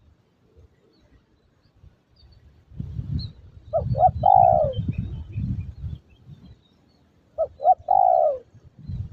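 Spotted dove cooing twice, each phrase two short notes followed by a longer falling coo, with low wind rumble on the microphone under the first call.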